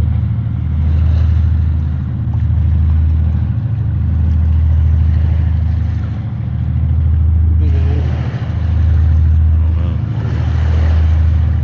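A steady low engine-like hum that swells and fades every couple of seconds.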